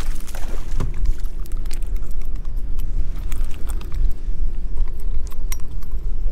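Wind buffeting the microphone as a loud, steady low rumble, with scattered sharp clicks and splashing as a hooked largemouth bass thrashes beside the boat and is swung aboard.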